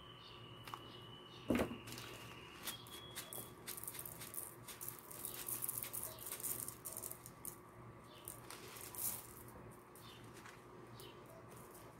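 Small plastic sequins pattering and rattling as they are sprinkled onto a glued ribbon bow and spill onto the table, in many quick light ticks, thickest midway. There is one light knock about a second and a half in.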